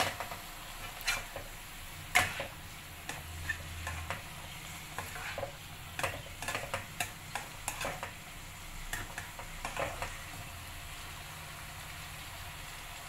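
Bean sprouts being stir-fried in a non-stick wok: a plastic spatula scrapes and knocks against the pan in irregular strokes, with a light sizzle of frying, over a steady low hum.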